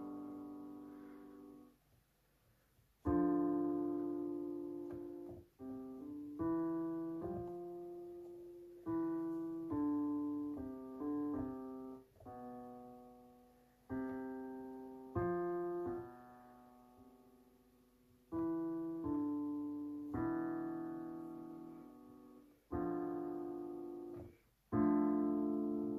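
SouidMy G-310W digital piano on its grand piano voice, played dry without reverb: chords and a few single notes struck one at a time, each left to fade before the next, starting about three seconds in after a brief pause.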